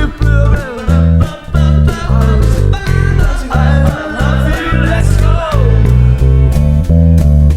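Plucked bass line on a hollow-body viola bass with a woody, acoustic-like tone, playing short, evenly spaced notes over a backing track with singing.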